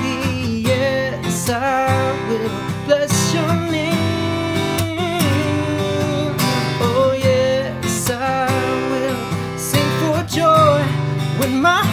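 Acoustic guitar strummed steadily, with a man singing a worship song over it.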